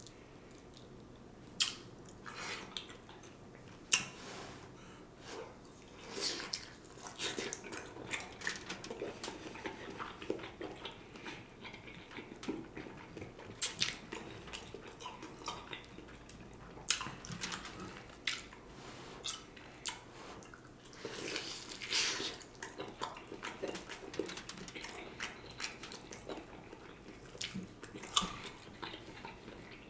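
Close-miked eating of a smoked turkey leg: chewing and mouth sounds with irregular sharp clicks and smacks, a few of them louder than the rest.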